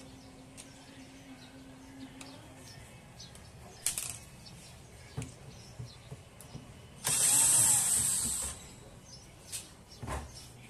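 Cordless drill/driver running in a burst of about a second and a half about seven seconds in, backing out a screw from a mixer's power supply housing, with light clicks and knocks of handling around it.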